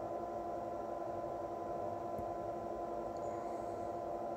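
A steady electrical hum made of a few constant tones, unchanging throughout.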